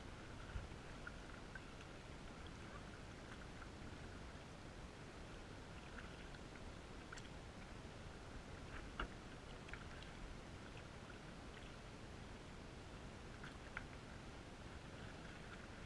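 Faint, muffled canoe paddling heard through a waterproof camera housing: a low steady hiss with scattered small ticks of paddle and water, and one slightly louder knock about nine seconds in.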